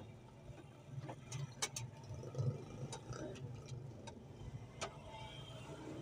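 Scattered light clicks and taps from a hand working the latch and lock linkage inside a car door, over a steady low rumble.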